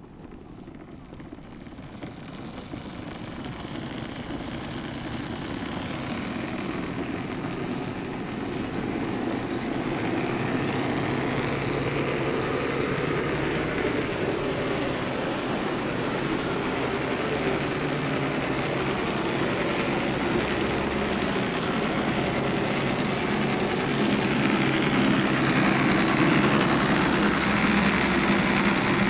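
Ikoma Cable funicular in motion: the haul cable running over the track pulleys as the car approaches, a steady rumbling whir that grows louder.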